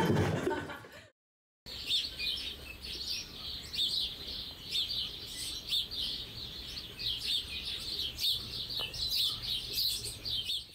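Birds chirping in a rapid, continuous twitter of many short high chirps, starting just after a brief silence about two seconds in.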